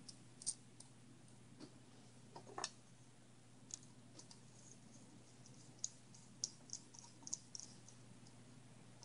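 Faint, scattered clicks and ticks of a hand screwdriver and small plastic and metal parts being handled as screws are driven into a Traxxas E-Revo rear differential. The clicks come more often in the second half.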